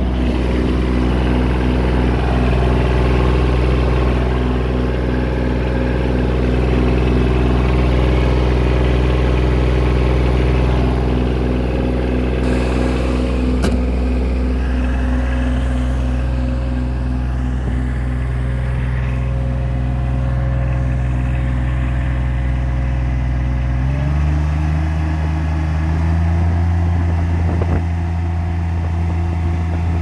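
Bobcat MT85 mini track loader's diesel engine running steadily. About three-quarters of the way through, its pitch steps up to a higher engine speed and holds there.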